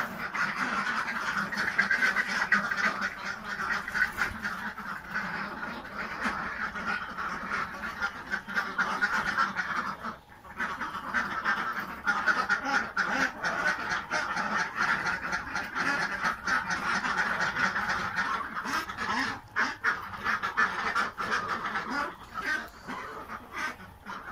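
Ducks quacking almost without pause, many calls overlapping, with a brief lull about ten seconds in.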